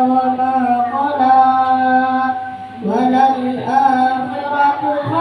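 A boy chanting a melodic recitation into a microphone, in long held notes with ornamented turns. There are two phrases, with a short breath-break a little past halfway.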